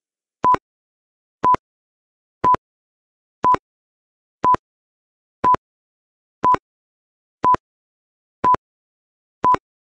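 Countdown timer beeping: ten short beeps of one steady pitch, one each second, with silence between them.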